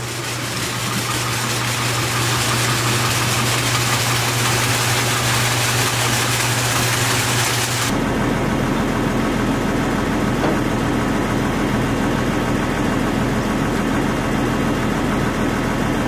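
Farm tractor's diesel engine running at a steady speed. About halfway through, the sound changes abruptly to a deeper hum.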